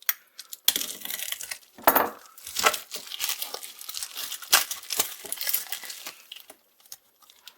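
A mail package being opened by hand: its packaging crinkled and torn in a run of irregular sharp crackles and rustles that thin out near the end.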